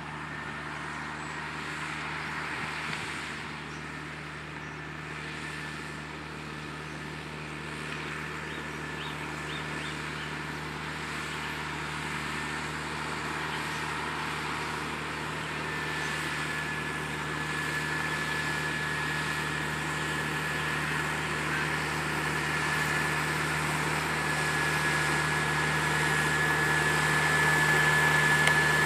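Fendt 820 Vario tractor's six-cylinder diesel engine running steadily as it pulls a slurry tanker and injector across grassland, growing louder as it comes closer. A steady high whine sits over the engine and gets stronger in the second half.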